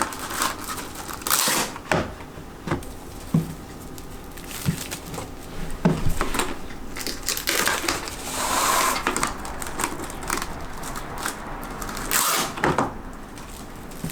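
Rustling and scattered light clicks and knocks, with a few louder rustling swells, as things are handled.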